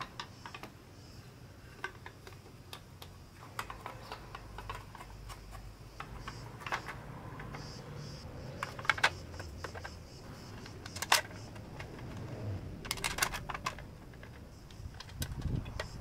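Light clicks and taps of hands handling and fitting the timing-belt covers onto a Ducati Multistrada 1000 DS engine, with a few sharper knocks about nine, eleven and thirteen seconds in.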